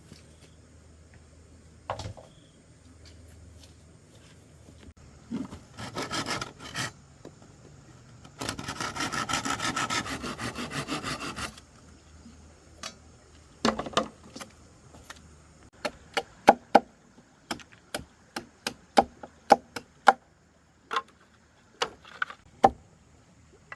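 Wood being worked with hand tools: a few short rasping strokes, then about three seconds of steady, rapid sawing, then a run of sharp chopping knocks, about two a second.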